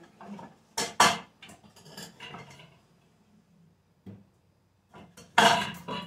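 Kitchen items knocking and clattering as they are moved and set down on top of a refrigerator: two sharp knocks about a second in, lighter taps after, and a louder clatter near the end.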